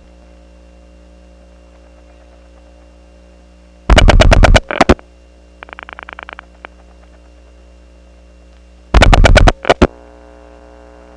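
Steady power-supply hum made of many harmonics of 60 Hz, heard on the line of a step-by-step telephone exchange's selector switches. Twice, about four and nine seconds in, it is broken by a burst of loud dial-pulse clicks, with a fainter run of rapid clicks between them. After the second burst the hum's pattern changes as the call steps into the next selector.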